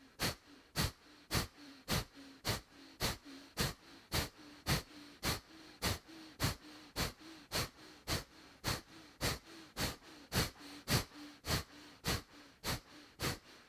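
Kapalabhati yoga breathing: a person forcing short, sharp exhalations out through the nose in an even rhythm, about two a second, like strokes.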